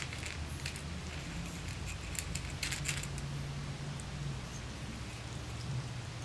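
Six-week-old Boston Terrier puppies eating dry kibble from a metal pan: scattered small crunches and clinks, thickest about two to three seconds in, over a steady low hum.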